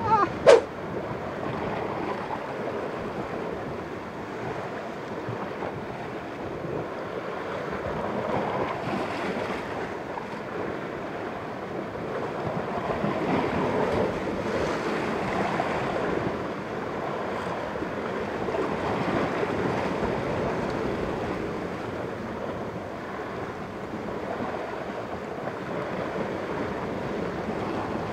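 Sea waves washing against the rocks at the foot of a cliff: a steady rushing that swells and eases every several seconds, with some wind on the microphone.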